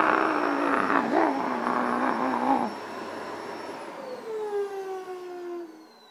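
Robot vacuum's motor running loud and rough, then cutting off about two and a half seconds in, its whine falling in pitch as it spins down and fades.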